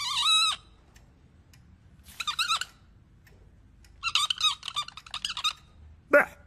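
High-pitched squeaky, warbling sounds in short bursts: one trails off about half a second in, another comes about two seconds in, a longer, quicker-wavering run follows about four seconds in, and a short sharp squeak falls in pitch near the end.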